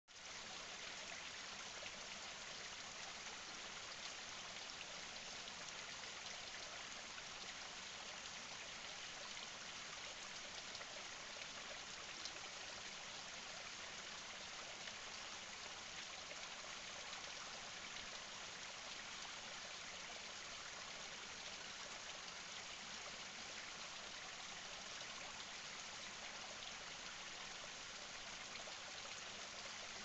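Small rocky stream trickling and splashing down a short cascade between boulders, a steady, even water sound.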